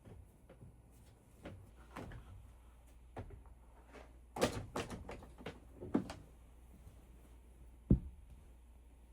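Irregular knocks and clatters of things being handled, with a cluster of clattering in the middle and a single sharp thump about eight seconds in.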